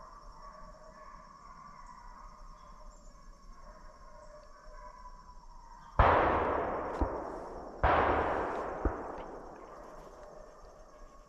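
Two gunshots fired at a cow-horn buck, about two seconds apart, each followed by a long fading echo.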